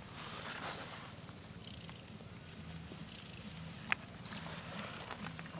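Faint rustling of grass stems as hands search through them, over a low steady hum, with one sharp click about four seconds in.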